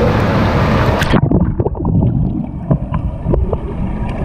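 Pool water heard through a waterproof camera: splashing and wide-band din at the surface, then about a second in the sound turns suddenly muffled and low as the camera goes under the water, with scattered bubbly clicks and knocks.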